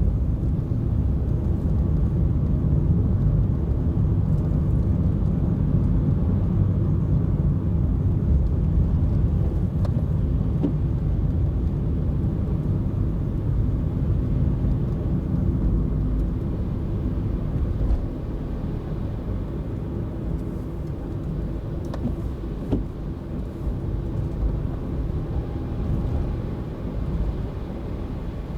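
Car being driven, its engine and tyre noise making a steady low rumble. The rumble drops a little about two-thirds of the way through.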